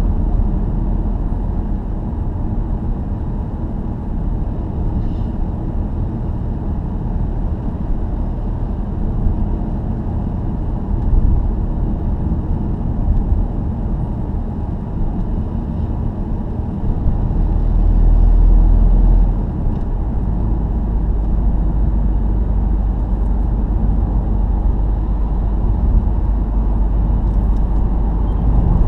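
Steady road and engine rumble of a car at motorway speed heard from inside the cabin, with a louder low surge for a couple of seconds a little past the middle.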